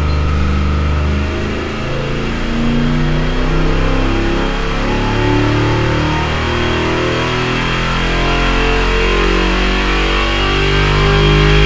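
Holden 308 V8 with a four-barrel carburettor running a wide-open-throttle power pull on an engine dyno. The engine note climbs steadily in pitch as it sweeps up from under 4,000 to about 5,500 rpm under load.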